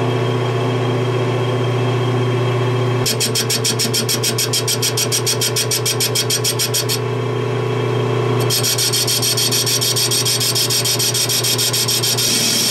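Metal lathe running with a steady motor hum while a carbide-insert tool faces the steel backing plate of a six-jaw chuck, which is out of true. For a few seconds the cut comes in rapid even pulses, several a second, then from about eight seconds in the tool cuts steadily with a high-pitched hiss.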